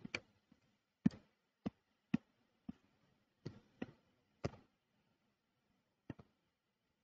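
Computer mouse clicking: about ten short, sharp clicks at irregular spacing, with a quick pair near the end.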